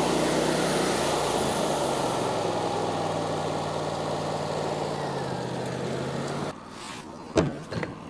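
An engine running steadily under a broad hiss, its pitch dropping slightly about five seconds in, then cutting off suddenly about six and a half seconds in. Two short knocks follow near the end.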